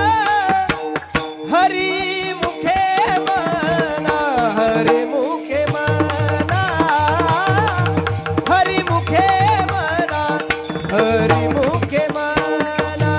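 A male voice singing an ornamented, gliding devotional melody over a steady held drone, accompanied by a low-pitched mridang drum pattern that drops out briefly around the middle and comes back.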